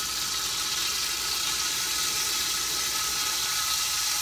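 Olive oil sizzling in a frying pan, a steady hiss that grows a little louder as the pan heats, with a thin steady tone underneath.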